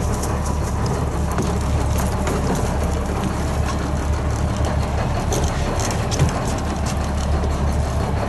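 Fishing boat's engine running steadily, a constant low drone, with faint scattered clicks over it.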